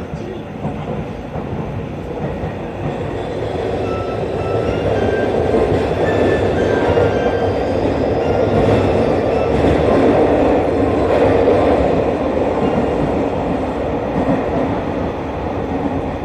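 Tokyu 5050 series 4000-subseries electric train running, a steady rumble of wheels and running gear that grows louder towards the middle and eases off near the end.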